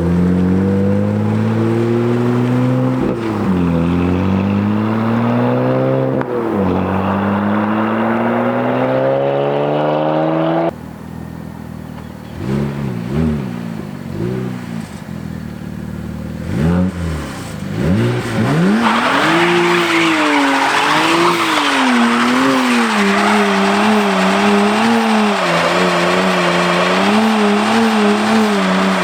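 BMW 335i's twin-turbo straight-six revving hard, the pitch climbing in three pulls with two sudden drops between them. After a break come a few short revs, then from about two-thirds in the engine is held at high, wavering revs while the rear tires spin and squeal in a burnout on worn-out tires.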